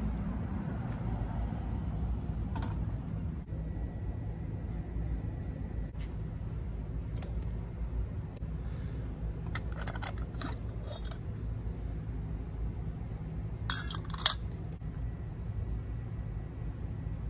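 Stainless steel camping pot and lid clinking and clattering a few times, with the loudest clatter about fourteen seconds in, over a steady low background rumble.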